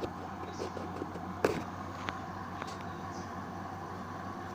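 Hoover washing machine running in its rinse cycle: a steady mechanical hum, with a sharp click about a second and a half in and a few fainter ticks.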